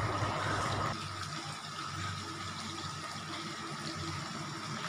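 Onion-tomato masala frying in oil in a steel pot, a steady low sizzle that drops slightly about a second in.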